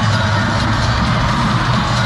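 Loud music playing over an arena's sound system, with strong bass.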